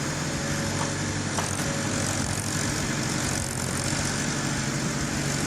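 Log loader's engine running steadily, with a light knock about one and a half seconds in.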